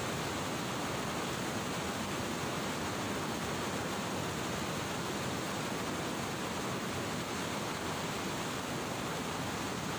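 Steady rushing of fast, turbulent floodwater below a river weir, churning along a concrete channel bank.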